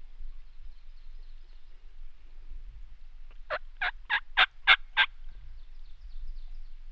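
Turkey yelping: a run of six loud, evenly spaced notes, about three a second, over a low steady rumble.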